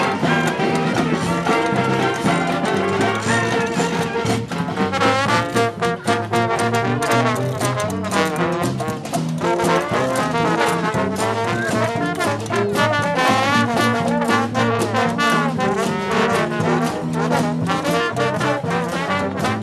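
A street brass band playing a tune, several horns sounding together, with wavering, shaking held notes in places.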